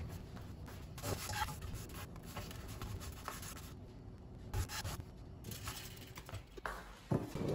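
Soft scraping and rubbing as a flour tortilla is turned over and lifted out of a dry nonstick pan, with a few light knocks.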